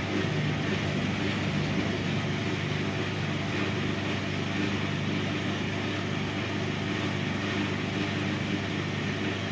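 A steady low machine hum with a constant pitch, no strokes or changes.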